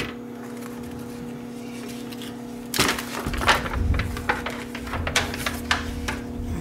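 Disposable aluminium foil baking pan crinkling and clattering against a metal pizza pan as a baked brownie is turned out onto it, starting about three seconds in with a sharp crackle and continuing as a run of crackles and knocks. A steady electrical hum sits under it.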